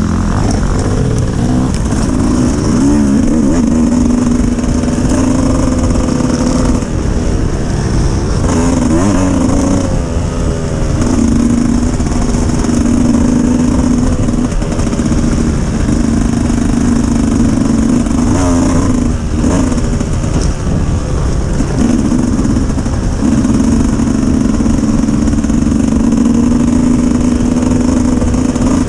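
Dirt bike engine running loudly at a steady speed, its pitch wavering briefly up and down a few times.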